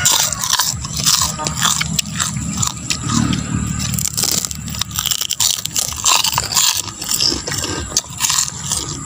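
Two people biting into and chewing crispy beef chicharon (puffed fried beef skin), a run of irregular crunches and cracks, over a steady low hum.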